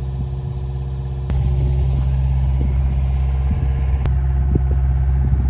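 Heavy diesel engine running at a steady speed, a loud low hum that steps up in level a little over a second in, with a few faint knocks over it.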